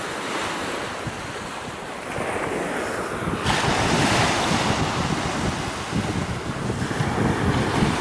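Surf washing onto a sandy beach, mixed with wind rumbling on the microphone. The noise grows louder about two seconds in and turns brighter and hissier a little past the middle.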